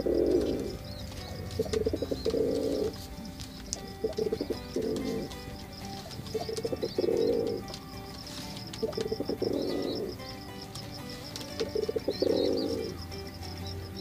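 Male domestic pigeon cooing: six low, burbling coos about every two seconds. Faint high chirping runs underneath.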